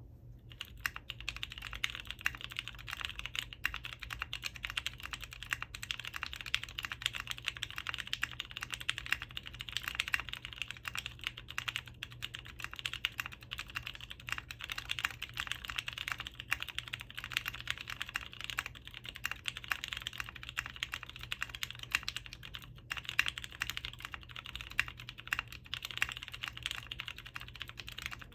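Continuous fast typing on a mechanical keyboard with lubed vintage Cherry MX Brown switches on an FR4 half plate, topped with PBT keycaps: a dense, even stream of key clacks and soft bottom-outs.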